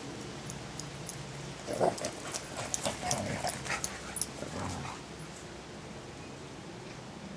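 Dogs running up close on a grassy path, with a cluster of short, soft dog sounds and rustling between about two and five seconds in, then a low steady background.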